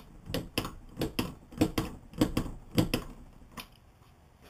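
Ratchet head of a torque wrench clicking in short back-and-forth strokes, about three clicks a second, as an ATC front fork's top cap is tightened to about 25 pounds. The clicking stops about three and a half seconds in.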